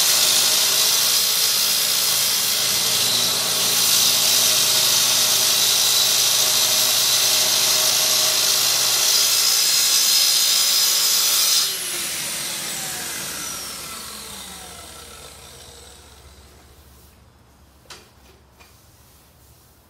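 Festool plunge-cut track saw, with its dust extractor hose attached, running steadily through a thick live-edge slab along a guide rail. This is the long mitre cut for a waterfall table edge. About two-thirds through, the saw is switched off and its whine falls away over several seconds, followed by a couple of light knocks.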